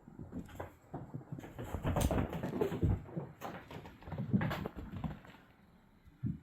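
A flurry of irregular light thumps and taps, busiest in the middle, with one sharp knock near the end.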